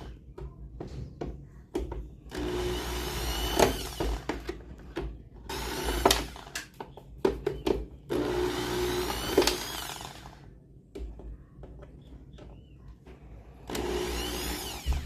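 Handheld electric drill-driver run in four short bursts of one to two seconds, its whine rising as it spins up and falling as it winds down, with small clicks and clatter between bursts. This is typical of screws being driven out while a washing machine is taken apart.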